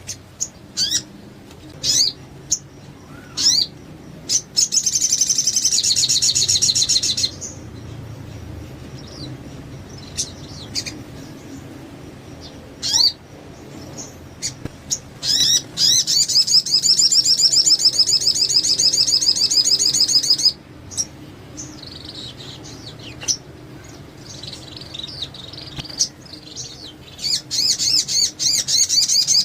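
A sogon songbird singing: short high chirps, then fast, high-pitched trills, one lasting about two seconds early on, one lasting about five seconds midway, and another building near the end.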